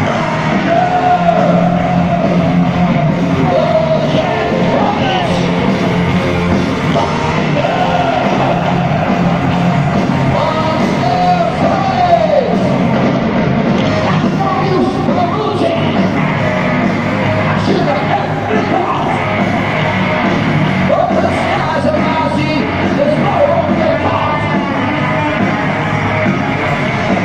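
Heavy metal band playing live in a stadium: distorted electric guitars, bass and drums under a male lead vocal, loud and continuous. The recording is made from far back in the crowd, so the mix is reverberant and dull in the highs.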